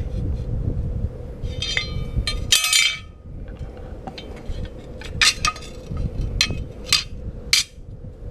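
Metal parts clinking as a torque converter is turned against an engine's flex plate to line up the bolt holes: a couple of ringing clinks, then a run of sharp metallic taps and clicks.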